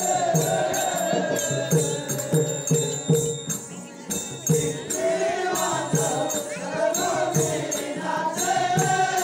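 Live folk-theatre music: a voice sings long, wavering held notes over a drum beating a steady rhythm of about two beats a second, with small metal percussion ticking along. The singing breaks off about three seconds in and comes back near the five-second mark while the beat carries on.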